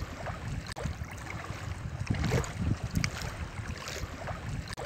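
Wind buffeting the microphone: a low, uneven rumble that comes in gusts.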